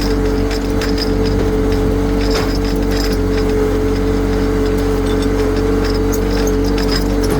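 An engine running steadily at one speed: a steady whine over a constant low rumble, with a few faint clicks.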